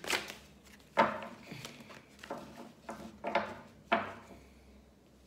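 Oracle cards being handled on a table: a series of sharp taps and slaps, about six in four seconds, the loudest about a second in and just before the end, then fading out.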